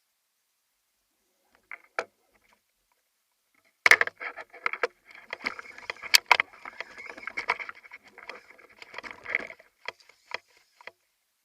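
Rapid, irregular clicking and rattling, dense for about five and a half seconds, with a few single clicks before and after.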